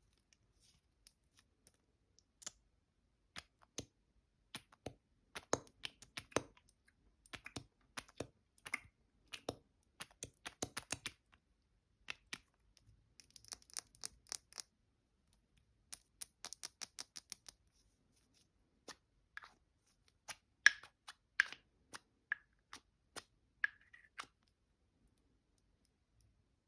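ASMR tapping on travel-size cosmetic containers: irregular sharp taps and clicks, with a few quick runs of rapid tapping.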